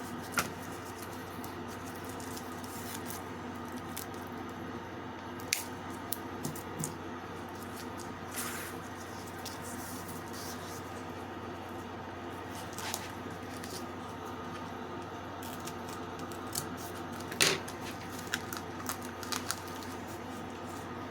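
Hands pressing and handling a diamond painting and its adhesive velcro strips: scattered clicks and taps, the loudest about 17 s in, and a short rustle about 8.5 s in. A steady low hum runs underneath.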